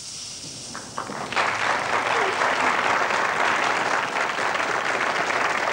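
Studio audience applauding, the clapping starting about a second in and holding steady, after a short hiss at the start.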